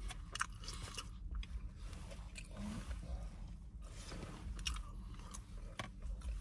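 A person chewing a mouthful of food close to the microphone, with small wet, crackly mouth clicks, over a steady low hum.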